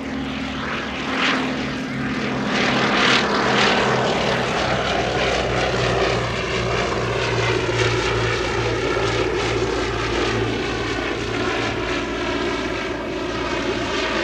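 Propeller-driven aircraft's piston engine running steadily through a fly-past. It is loudest a few seconds in, and its tone falls gradually as it passes.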